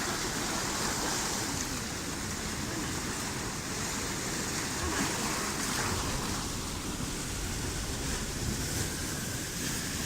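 Steady wash of sea surf, with wind buffeting the microphone.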